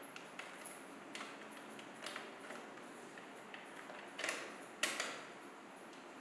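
Light metal clicks and taps as a dining table's black wire support frame and its small screws and nuts are fitted by hand to a wooden leg, with two louder clatters about four and five seconds in.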